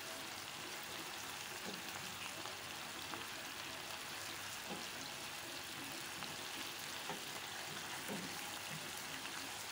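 Shrimp with garlic, shallots and chili frying in a little water in a nonstick wok: a steady sizzle, with occasional soft scrapes of a silicone spatula stirring.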